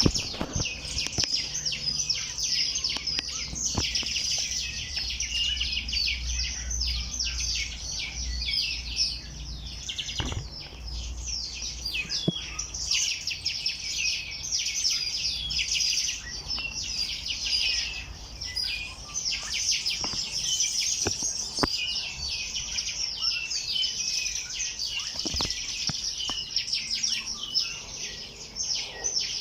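Many small songbirds chirping and twittering at once, a dense, unbroken chorus of quick high chirps and trills. A low rumble sits underneath for the first ten seconds or so.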